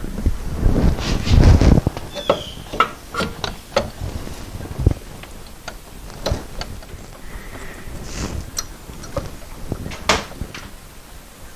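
Irregular clicks, clinks and knocks of bolts, tools and metal linkage parts being handled while the shift linkage is bolted back into the car, with a louder clatter about a second in.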